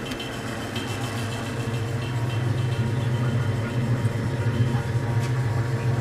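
Late-1920s Frigidaire refrigerator running with its door open: a steady low hum from the single-cylinder compressor, with the refrigerant boiling in the evaporator as the box pulls down to temperature. The sound grows a little louder over the first couple of seconds.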